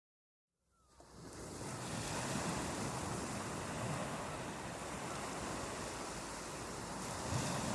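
Ocean surf on a beach: a steady rush of waves with some wind in it. It begins out of a brief silence and fades in over about the first second.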